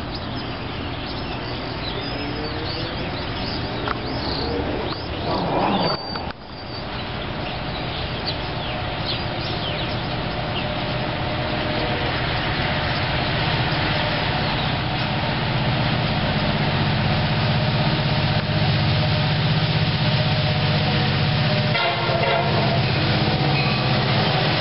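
CSX freight train's diesel locomotives approaching and passing: a low engine drone and rail noise that grow steadily louder as the train nears. A short louder sound cuts off suddenly about six seconds in.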